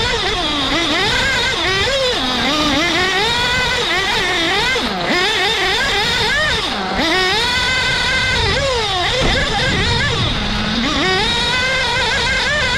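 A 1/8-scale R/C off-road buggy's motor heard from on board, its pitch swooping up and down again and again as it accelerates and brakes through the corners of a dirt track. Constant rushing noise from the tyres and dirt runs underneath.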